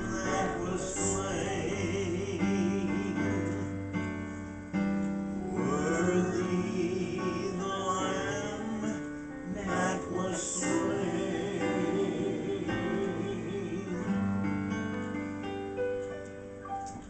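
A hymn sung with Yamaha Clavinova digital piano accompaniment: sustained, wavering sung notes over chords. It fades toward the end.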